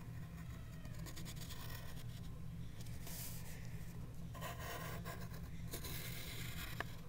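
Pencil lead scratching on paper in several separate drawing strokes, over a steady low hum.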